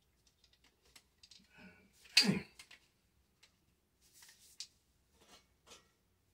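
Scattered light clicks and clacks of a Remington 870 Tac-14 pump shotgun's parts being handled during reassembly, with one louder knock about two seconds in.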